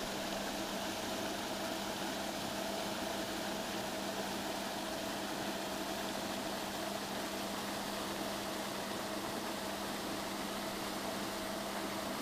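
Fishery lake aerator running: a steady mechanical hum over an even hiss.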